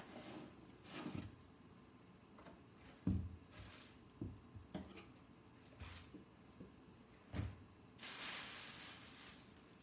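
Foam packaging being slid off a resin 3D printer and the printer set down on a table: a thump about three seconds in, then a few lighter knocks. A stretch of rustling near the end.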